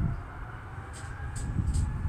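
Distant Airbus A220 turbofan engines whining, the pitch creeping slowly upward as thrust comes up at the start of the takeoff roll, with gusty wind rumbling on the microphone.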